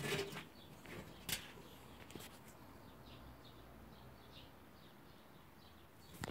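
Quiet shed ambience: a few sharp clicks and knocks in the first couple of seconds, then a run of faint, short, high chirps.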